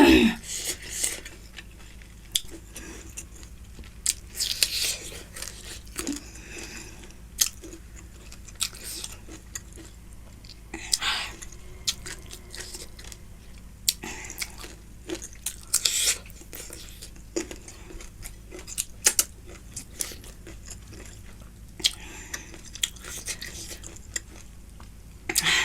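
Close-miked chewing and biting of food, irregular wet mouth sounds with scattered sharp clicks and crunches.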